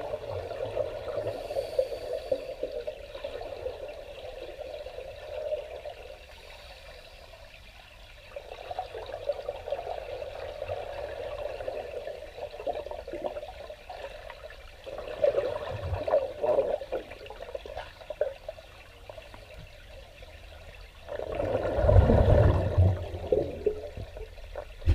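Underwater bubbling from a scuba diver's exhaled air, heard through the water in bursts several seconds long with short pauses between, loudest near the end.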